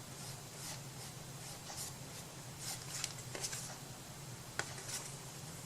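Faint, scratchy strokes of a tool drawn across paper during crafting, repeating irregularly, with a few light taps, over a steady low hum.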